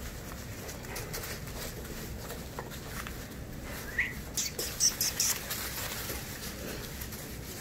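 Rottweiler puppies scuffling through wood-shavings bedding. About four seconds in there is a short rising squeak, followed by a quick cluster of sharp rustling scrapes, the loudest part.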